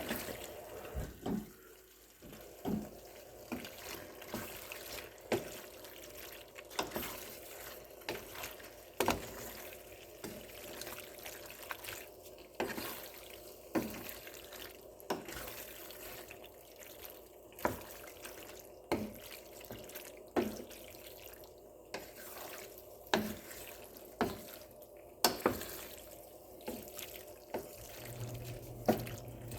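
Pasta being stirred with sauce and cheese in a pot, a utensil knocking against the pot with sharp clacks roughly once a second over a faint steady hum.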